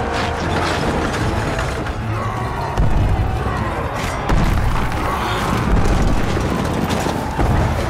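Battle sound effects of a city under siege: heavy booms about every second and a half over a dense din, with dramatic music and voices mixed in.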